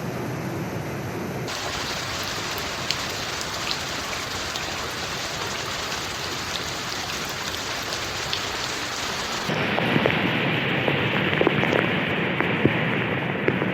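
Heavy rain falling as a steady hiss. The sound changes abruptly twice, and in the last few seconds individual drops and splashes tick sharply through the downpour.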